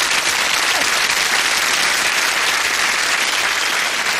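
Studio audience applauding steadily: dense, even clapping throughout.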